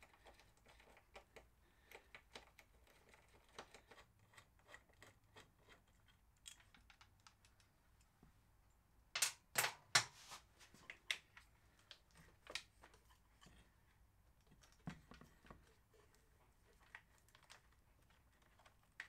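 Faint scattered clicks and rattles of hard plastic being handled as a motorcycle's plastic tail cover with its indicators is taken off and its wiring connectors unplugged, with a few sharper clicks about nine to ten seconds in.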